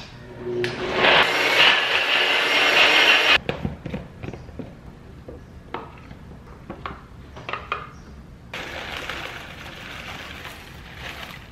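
Personal bullet-style blender running for about three seconds on a thick green smoothie mix, then cutting off suddenly. A spoon then clicks and scrapes the mix out of the blender cup into bowls, and near the end granola rattles and rustles as it is poured from a plastic bag.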